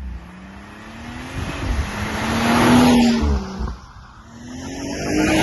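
BMW M140i's stock-exhaust 3.0-litre turbocharged B58 straight-six driving past under power. The engine note swells to its loudest about halfway through, falls away sharply, then builds again near the end as the car comes past once more.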